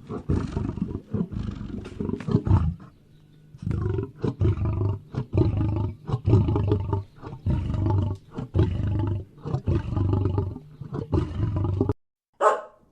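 A big cat roaring in a long run of rapid, repeated loud pulses, with a short lull about three seconds in. It cuts off suddenly near the end, and one brief sharp sound follows.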